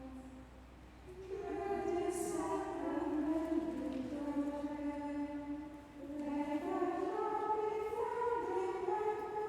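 A choir of nuns singing unaccompanied chant in long held notes and flowing phrases, with a short breath pause about a second in and another near six seconds.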